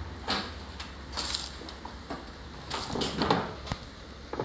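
A Samsung front-loader's plastic outer tub and drum being lifted and shifted out of the washer cabinet: a series of short knocks and scrapes.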